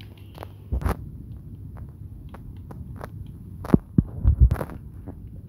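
Handling noise from a handheld camera: scattered light clicks and knocks, with a few loud low thumps clustered about four seconds in.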